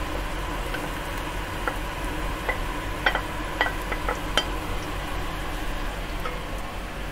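Chopped onion tipped into hot oil in a pot and sizzling with a steady hiss, with a wooden spatula scraping the plate and knocking against it and the pot several times, about two to four and a half seconds in.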